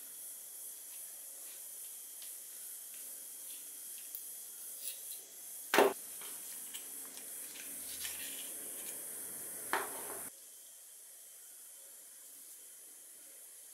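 Small metal clicks and taps as the parts of an old hand oiler's pump, plunger, spring and cap, are handled and fitted together, with two sharper knocks about six and ten seconds in, over a faint steady hiss.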